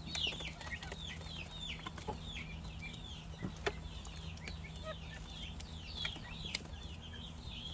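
Young pheasants in a pen peeping with short, high, downward-sliding chirps, several a second, over a low steady hum.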